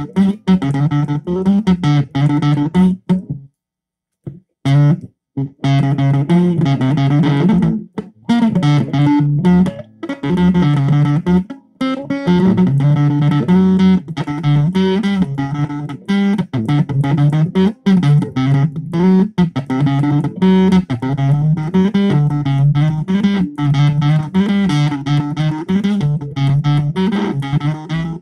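Strat-style electric guitar played through a Zoom 506 bass distortion pedal, riffing on a repeating low pattern with a crunchy distorted tone. There is a short break about three and a half seconds in.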